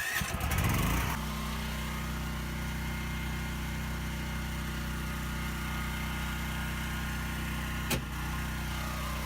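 Propane-fuelled portable generator engine starting up, with a rough first second before it settles into a steady, even run. A single sharp click sounds near the end.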